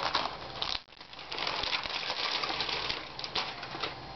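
Crinkling rustle of a metallic anti-static bag being handled and spread out: a dense run of small crackles starting about a second in, with a few sharp handling clicks around it.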